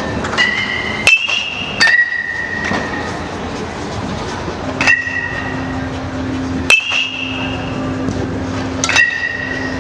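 Metal baseball bat striking baseballs in batting practice: a series of sharp pings, each ringing on briefly, about six in all, the first three close together. A steady low hum comes in about halfway through.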